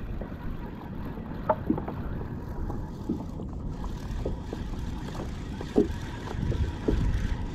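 Water sloshing and gurgling against a fishing kayak's hull in a choppy sea, with small scattered plops and wind on the microphone. It swells a little near the end.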